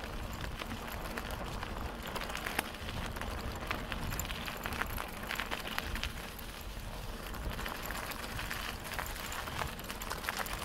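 Bicycle riding over a leaf-strewn dirt and gravel track: the tyres crunch and crackle over the surface with many small clicks and rattles, over a steady low rumble.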